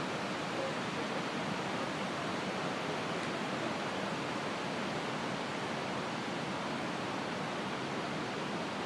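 Heavy flow of water pouring over the Croton Dam spillway: a steady, unbroken rush of falling water.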